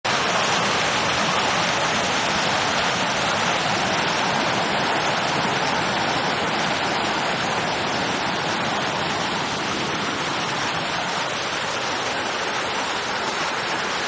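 Hailstorm: hailstones pelting down on paved ground and trees, a dense, steady rushing hiss with no let-up.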